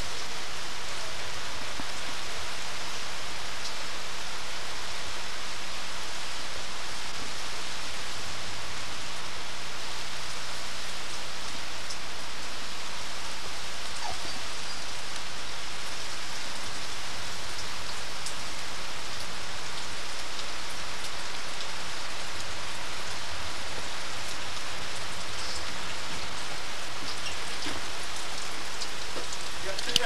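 Steady rain falling on trees and fallen leaves, an even, unbroken hiss.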